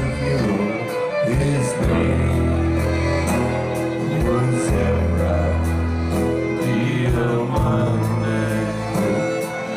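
Live band music at full volume: a song with singing over held low bass notes and a steady drum beat.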